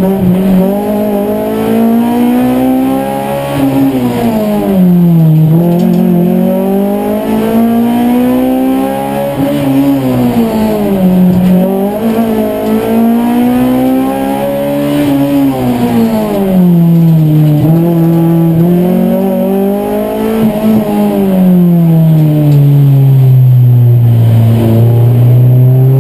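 Honda Civic competition car's engine heard from inside the stripped cabin, revving up and dropping back over and over as the car accelerates and slows. Near the end the note makes one long fall and settles low.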